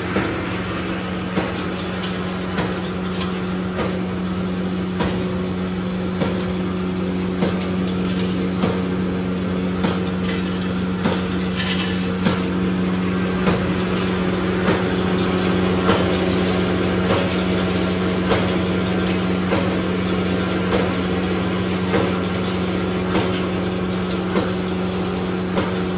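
Wire straightening and cutting machine for 2–4 mm wire running: a steady hum, with a sharp metallic clack about every 1.2 seconds as the servo-driven cutter shears off each length of wire.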